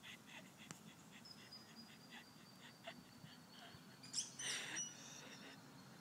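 Rosellas chirping faintly in short high notes, with a thin high whistle held for several seconds and a louder, harsher burst about four seconds in.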